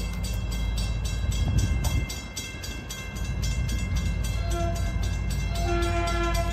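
Railroad crossing signal bell ringing in rapid, evenly spaced strikes. A horn sounds briefly about four and a half seconds in and again near the end.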